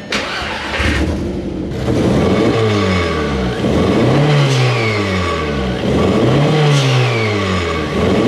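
Turbocharged 1.8T 20-valve four-cylinder engine being free-revved in repeated blips, about one every two seconds, the pitch rising and falling each time. As the revs drop after each blip a high falling whistle is heard: the turbo spooling down and the blow-off valve venting.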